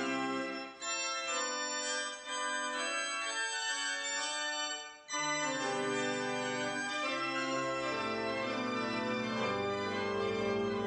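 Church organ playing sustained chords, with a brief break about five seconds in; after it, deep bass notes come in under the chords and grow fuller in the second half.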